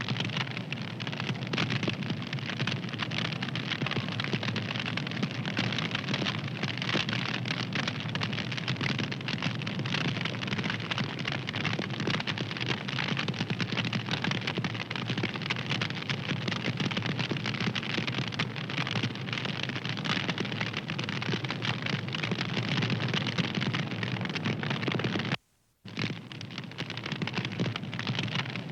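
A fire crackling steadily, a dense run of small pops and snaps. It cuts out for about half a second near the end, then resumes.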